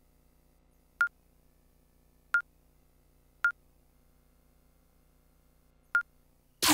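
Electronic dart machine beeping as its game menu is stepped through: four short single beeps, unevenly spaced. Near the end a loud electronic sound effect with several falling pitches begins as the game is started.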